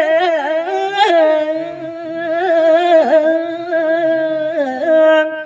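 A man's voice singing Balinese geguritan (tembang) into a microphone: one long phrase of drawn-out notes with wavering ornaments, trailing off at the end.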